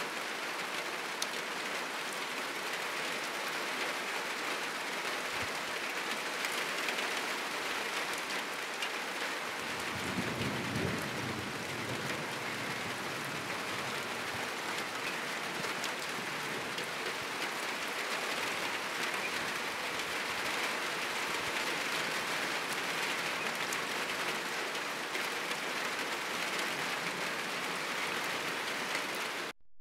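Heavy rain falling steadily on a roof and surrounding trees, a dense even hiss. About ten seconds in, a low rumble of thunder swells for two or three seconds. The sound drops out for a moment at the very end.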